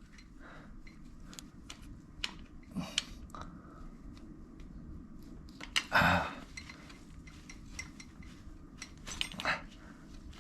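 Scattered small clicks and taps of hands and tools working a stuck rubber hose off an ATV fitting, with a few short rushes of breath-like noise, the loudest about six seconds in.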